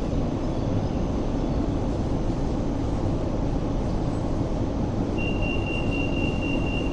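Steady hum of a Hong Kong Light Rail Phase 5 car standing at a stop with its doors open. About five seconds in, a steady high warning tone starts and keeps sounding: the door-closing warning just before the doors shut.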